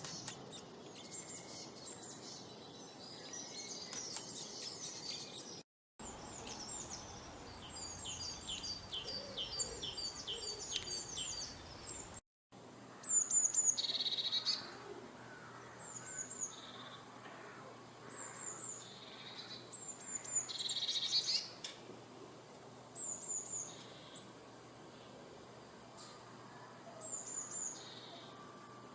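Songbirds singing and chirping, in three stretches joined by two brief silent cuts. First comes a dense chatter of overlapping chirps, then a run of quick repeated falling notes. Last come spaced pairs of high chirps about every two to three seconds.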